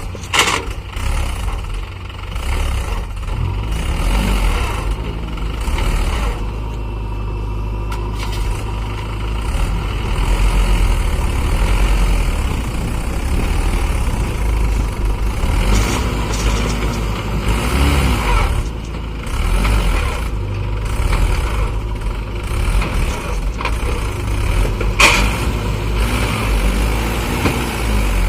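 Mahindra 575 DI tractor's diesel engine running hard under load, its pitch rising and falling a few times as it is revved while the tractor is stuck. There is a sharp clank near the end.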